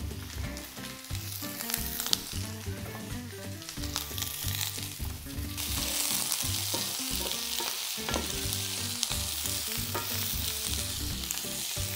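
Diced yellow onions frying in a very hot skillet of garlic-infused olive oil, sizzling. The sizzle jumps much louder about five and a half seconds in and then holds steady.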